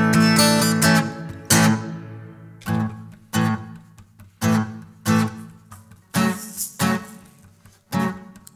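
Taylor steel-string acoustic guitar strummed in a rhythmic chord pattern: sharp strokes, each chord ringing and fading before the next, with no voice.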